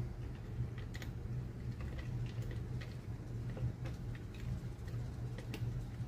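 Scattered light clicks and taps of plastic parts being handled inside the open shell of an Adventure Force Desperado foam-dart blaster, its revolving cylinder being worked into place, over a steady low hum.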